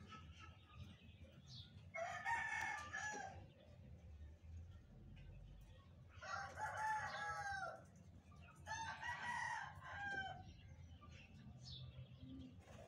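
A rooster crowing three times, each crow lasting over a second: about two seconds in, about six seconds in, and again around nine seconds, over a low steady background hum.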